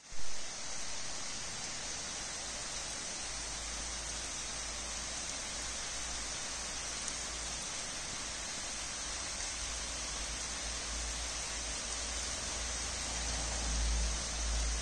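Steady rain falling on paving, grass and a pond: an even, constant hiss. A short knock at the very start, and a low rumble that comes and goes underneath.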